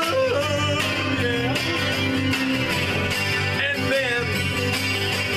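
Acoustic guitar strummed in a steady rhythm, with a man's voice singing along off and on.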